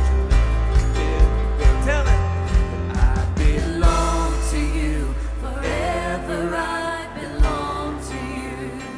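Live worship band playing with a singer's voice over it. Drum hits keep a beat for the first few seconds, then drop away, and the music grows softer toward the end.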